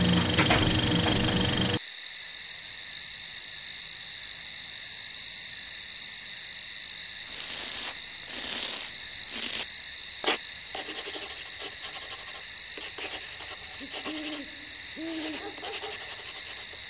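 Insects chirping in a steady, high-pitched, pulsing trill. A low sound underneath cuts off about two seconds in, and a couple of short, low, hoot-like calls come near the end.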